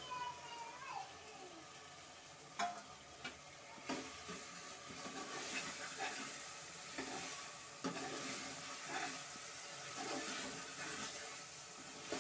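A steel ladle stirring paneer cubes and peas through masala in an aluminium pressure cooker, with scrapes and a few sharp clinks against the pot over a steady sizzle of frying.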